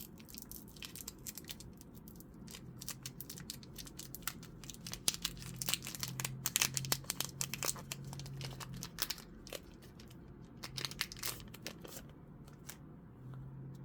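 Foil Pokémon booster pack being torn open and crinkled by hand, a run of irregular sharp crackles, thickest midway. A faint steady low hum sits underneath.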